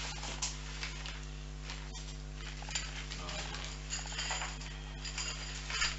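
Metal tent pegs clinking against one another as they are packed into a stuff sack, with irregular clicks and the rustle of the bag.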